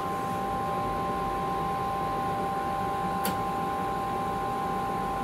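Steady whir of a two-tube 3-500Z linear amplifier's cooling fans, with two steady high whining tones over it and one sharp click about three seconds in.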